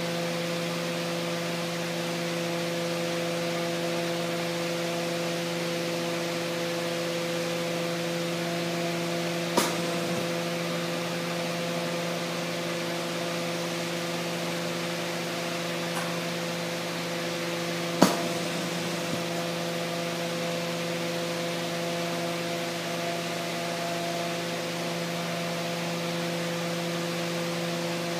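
Steady hiss of a glassblowing bench torch burning, over a constant low hum with overtones. Two sharp clicks, the second louder, about ten and eighteen seconds in, with a fainter one between.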